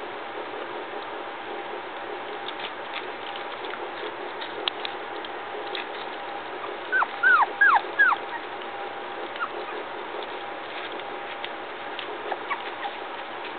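Three-week-old puppies whimpering: four short squeals in quick succession, each falling in pitch, about halfway through. Faint clicks and smacks come from the pups eating soft food off the plate.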